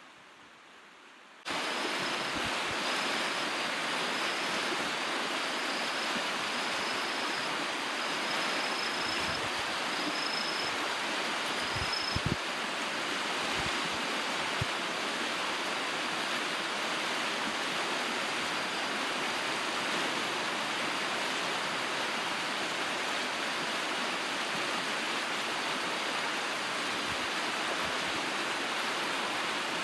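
A rain-swollen, muddy stream in flood, its fast water rushing and churning as a steady, even roar that starts about a second and a half in.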